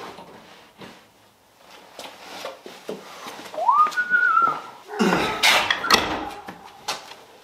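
Clunks, knocks and rattles of a Jeep Wrangler door being handled and taken off, with a brief high whine that rises and then wavers about four seconds in, and the loudest clatter about five seconds in.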